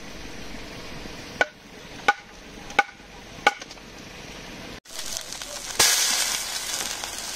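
A knife chopping on a cutting board: four sharp, evenly spaced chops, one about every 0.7 s. After a break comes a loud, steady hiss.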